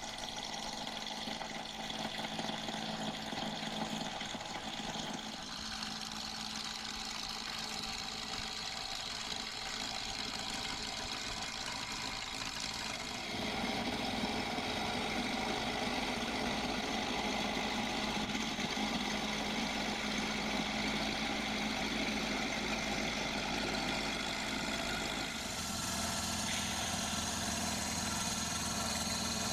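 Wood lathe running while a 4x4 blank is turned down into a round drum: a steady motor hum with the noise of the tool cutting the spinning wood. The sound changes abruptly twice, about halfway through and near the end.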